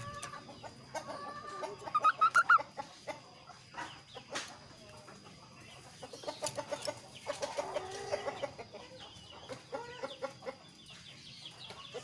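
Caged kaso-kaso songbird calling in bouts of short, rapidly repeated chattering notes, loudest about two seconds in, with further runs in the second half, mixed with a few sharp clicks.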